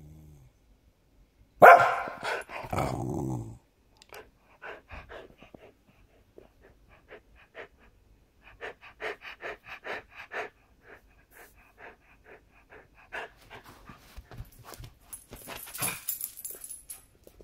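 White spitz-type dog giving a loud alarm bark about two seconds in, then panting quickly and steadily.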